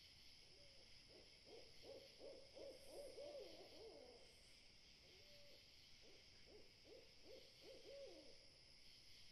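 An owl hooting faintly at night in two runs of wavering, quavering notes, the first from about half a second to four seconds in and the second from about five to eight and a half seconds in, over a steady high hiss.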